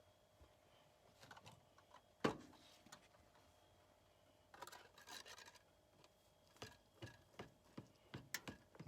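Faint handling noises in a small room: one sharp knock about two seconds in, then rustling and scraping, and a run of small clicks and taps near the end.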